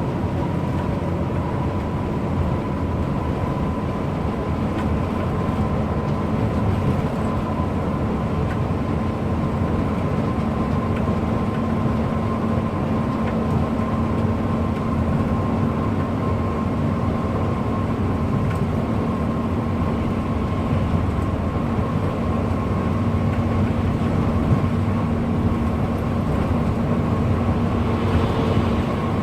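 A bus driving at speed: steady engine and road noise, with a high whine and a lower hum that both creep slowly up in pitch.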